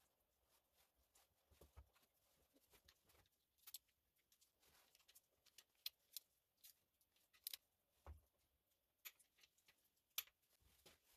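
Faint, irregular sharp clicks and a few dull knocks as a torque wrench and socket are worked on the engine block's bolts, the first tightening step to 30 Nm.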